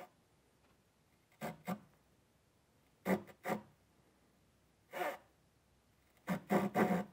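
Handsaw cutting wood in short, tentative strokes while starting a new kerf: pairs of strokes separated by pauses, then a quicker run of four or five strokes near the end.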